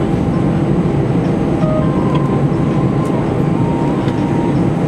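Airbus A319 cabin noise heard from a passenger seat: a steady low rumble of the engines and airframe as the jet rolls on the ground after landing.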